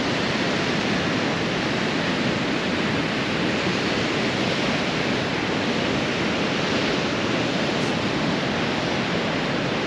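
Atlantic ocean surf washing on the shore in a steady, even rush.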